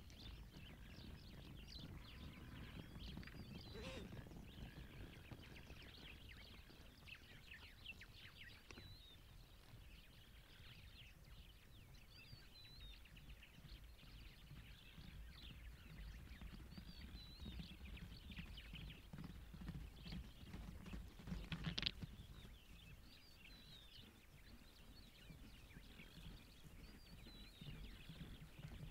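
Faint outdoor ambience: repeated short, high chirps over a low, steady rumble, with one sharp knock about 22 seconds in.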